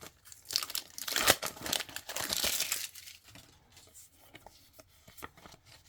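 A sticker packet being torn open, its wrapper crinkling, for about three seconds; after that only faint scattered rustles and ticks as the stickers are handled.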